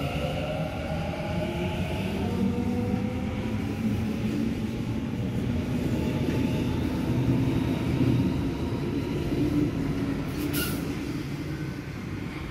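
Sydney Trains double-deck electric train pulling out and accelerating past along the platform. Its traction motors whine, rising in pitch over the first couple of seconds, then it settles into a steady rumble. A short, sharp high sound comes about ten seconds in.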